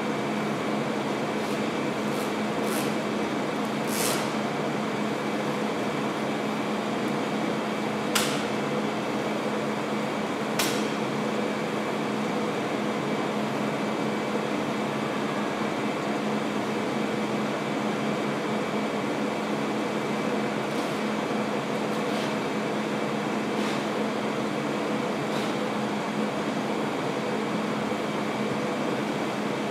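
Steady hum of room air conditioning, with a few brief, sharp crackles of adhesive tape being drawn off its roll.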